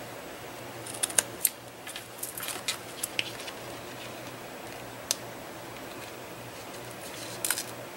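Scissors snipping through aluminium foil tape and paper: a handful of short, sharp cuts and crinkles, bunched together in the first few seconds, one more about five seconds in and a couple near the end.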